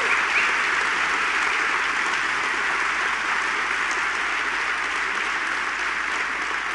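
Audience applauding: steady, dense clapping that slowly tapers off.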